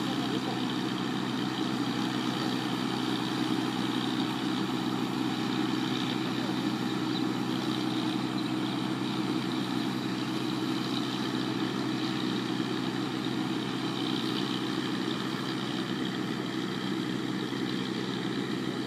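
Rice combine harvester's engine running steadily, an even, unchanging drone.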